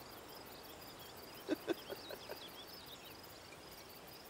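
Quiet outdoor field ambience: faint chirping of insects and small birds, with a couple of short soft sounds about one and a half seconds in.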